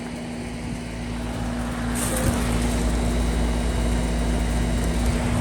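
Outdoor heat pump condensing units running: a steady compressor hum under fan air noise, the airy hiss growing a little louder about two seconds in.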